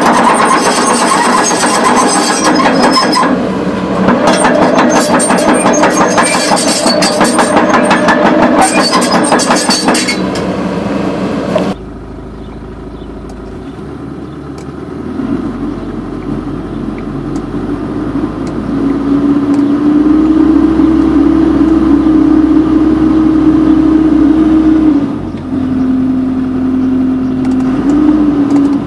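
Caterpillar 312B excavator running: a loud, dense clatter full of sharp clicks stops suddenly about twelve seconds in. The diesel engine then builds again with a steady whine, which steps up about twenty seconds in and drops back a few seconds before the end.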